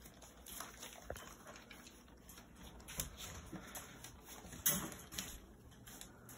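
Faint rustling and pattering of young golden retriever puppies shuffling about on newspaper, with scattered small clicks and a slightly louder rustle a little under five seconds in.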